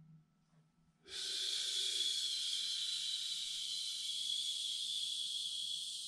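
A man's long, steady hissing 'sss' exhale through nearly closed teeth, starting about a second in and held without a break. This is the qigong healing sound for the lungs: a slow, forced, continuous exhale.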